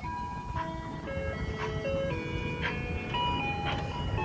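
Ice cream truck's loudspeaker playing its electronic chime jingle, a simple melody of clean held notes stepping from one to the next, over a low steady rumble.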